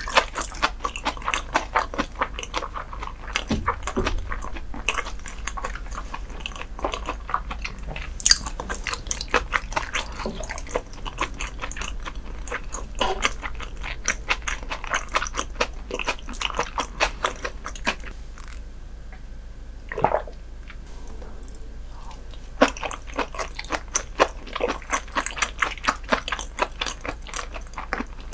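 Close-miked eating sounds of raw herring sashimi being chewed: a dense run of short mouth clicks and bites, easing off for a few seconds past the middle before picking up again.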